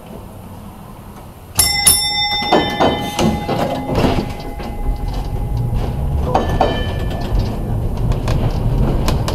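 Historic streetcar's gong struck about a second and a half in, ringing with several tones that fade over a couple of seconds, and rung again about six and a half seconds in. A low rumble of the motors and the wheels on the rails builds from about five seconds in as the car starts moving.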